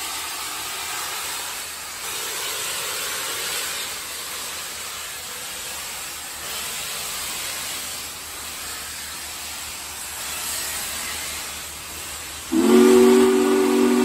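Union Pacific Big Boy 4014 steam locomotive pulling away: steam hissing from around its cylinders, swelling and fading every few seconds. Near the end, one loud blast of its chime steam whistle, several notes at once, about two seconds long.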